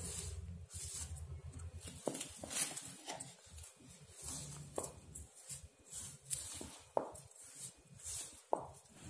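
Hands squishing and kneading leftover rice with glutinous rice flour in an aluminium bowl, with a house cat giving four short rising meows.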